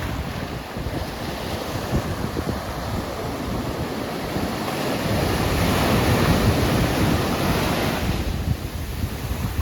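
Ocean surf breaking and washing ashore, with wind buffeting the microphone. A wave builds louder past the middle and falls away near the end.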